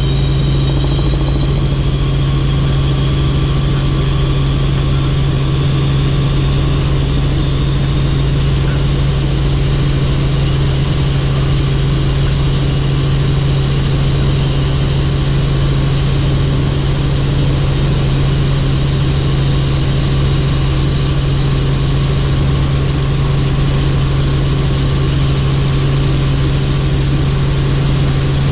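Helicopter in flight: a loud, steady low drone with a high whine above it that drifts slightly in pitch.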